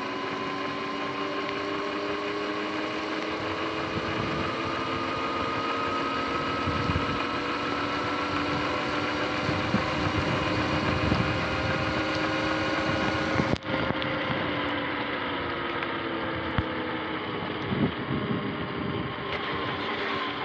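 Sur-Ron X electric dirt bike under way: its motor and drivetrain whine in several steady tones that climb slowly as it gathers speed, over the hiss of tyres on wet pavement. There is a sudden short dropout about two-thirds in, after which the whine falls away and rises again.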